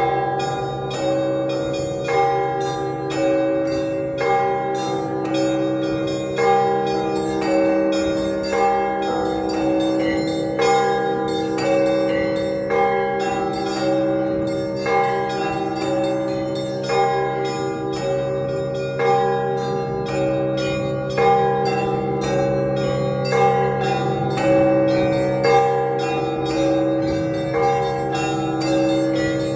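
Russian Orthodox church bells rung together in a continuous peal: one smaller bell struck in a fast, even run over a repeating figure of several mid-sized bells, with a big bell's low hum sounding underneath.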